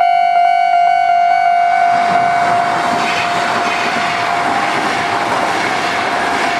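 Kintetsu electric train passing over the level crossing, its wheels on the rails making a loud, steady rush that from about a second and a half in drowns the crossing alarm. Before that, the crossing's electronic warning tone sounds, with clicks about three times a second.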